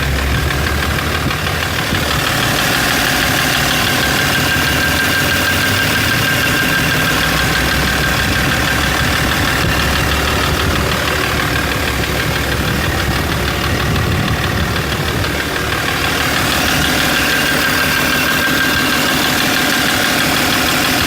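BMW M57 3.0-litre straight-six turbodiesel running steadily with a knock. The knock appeared right after the injectors were removed and refitted (one replaced, one adjusted, the injector wells cleaned out), and the owner does not know its cause.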